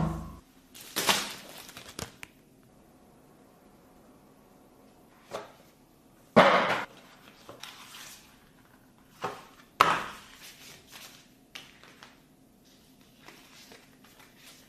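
Phone-box packaging being handled: the cardboard box, a paper sleeve and a plastic case give a string of short, separate scrapes and rustles, the loudest about six and a half and ten seconds in. A heavy thud comes right at the start.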